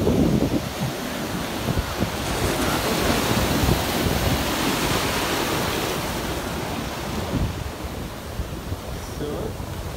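Ocean surf breaking and washing up the beach, with wind buffeting the microphone; loudest in the first second, then a steadier wash.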